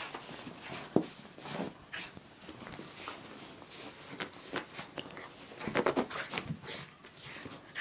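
A wet dog rolling and rubbing itself on carpet after a bath, making irregular rustling and scuffing sounds. There is a sharp knock about a second in and a busier run of scuffing near six seconds.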